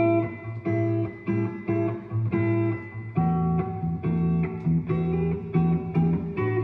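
Vinyl record playing through a Realistic SA-700 integrated amplifier's phono stage and speakers: an instrumental guitar intro, chords struck in a quick, even rhythm, about three a second, over a steady bass.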